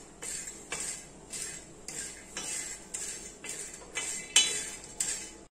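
Green cardamom pods being stirred while dry-roasting on a hot griddle (tava), the utensil scraping and clattering against the pan in strokes about twice a second; the pods are being roasted until they puff up. The sound stops abruptly near the end.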